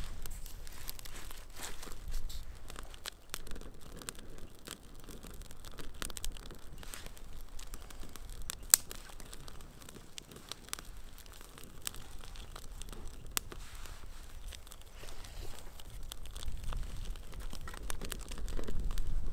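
Small kindling fire of conifer twigs just catching, with irregular sharp crackles and snaps, and twigs rustling as sticks are laid on by hand. A low rumble comes in near the end.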